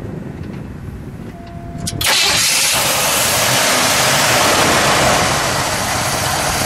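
A 1971 Buick Riviera GS's 455 V8 starts up: it catches suddenly about two seconds in and then runs loudly and steadily.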